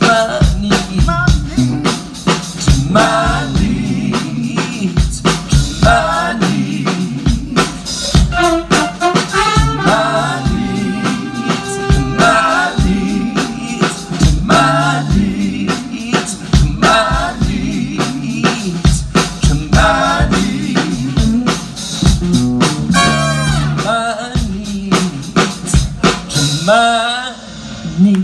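A large band playing live: drum kit, accompaniment and sung vocals. The music dips briefly near the end.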